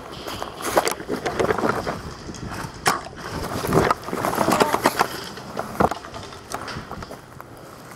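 Irregular rustling, crackling and knocks close to the microphone, the sound of movement and handling of gear, with the loudest knocks about a second, three seconds and six seconds in.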